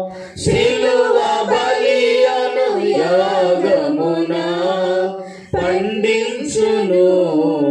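A man singing a slow Telugu hymn into a microphone, holding long notes with short breaks for breath about half a second in and again about five and a half seconds in.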